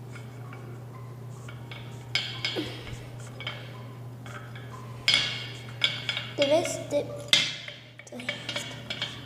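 A pencil tapping and scraping against a small clay dish of water, in irregular clinks and scrapes that start about two seconds in, over a steady low hum.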